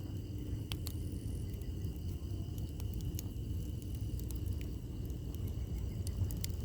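Firewood burning in a campfire: scattered sharp crackles and pops, a few louder snaps among them, over a steady low rumble.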